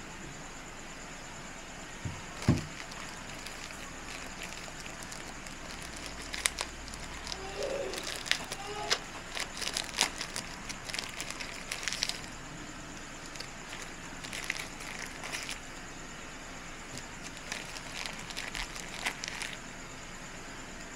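Crinkling and rustling of thin packaging wrappers being handled and unwrapped, in two stretches of crackles, with a single knock about two seconds in.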